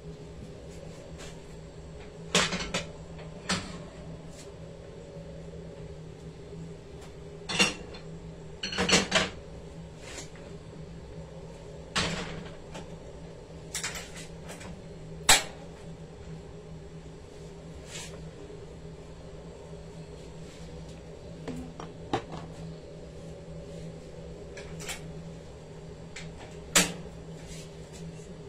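Kitchen clatter: scattered sharp knocks and clinks of cookware and cupboards being handled, about eight clear ones at uneven intervals, over a steady low hum.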